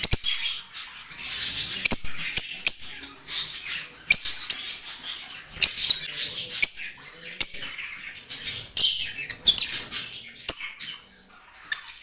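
Fischer's lovebirds chirping and squawking: shrill, high-pitched calls in quick bursts, several birds at once, with a few sharp clicks among them. The calls thin out near the end.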